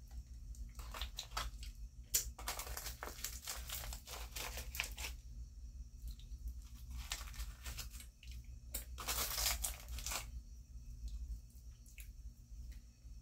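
Foil candy packet crinkling and rustling close to the microphone, in several bursts with short pauses between.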